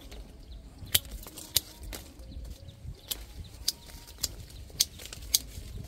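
Hand pruning shears snipping durian branches: a series of sharp clicks, about one every half second, with a short pause in the middle.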